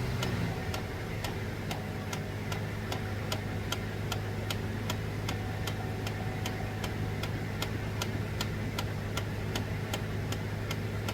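Steady, evenly spaced clicking from under the dash of a 2006 Chevrolet Trailblazer, about two to three clicks a second, over the engine idling just after start-up. It is the recurring start-up clicking fault the owner is trying to fix.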